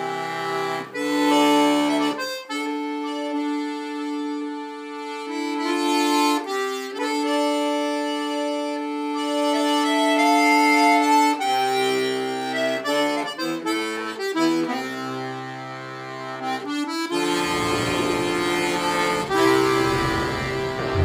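Button accordion playing a slow tune in long held notes and chords, with bass notes underneath. Near the end a low rumble comes in beneath it.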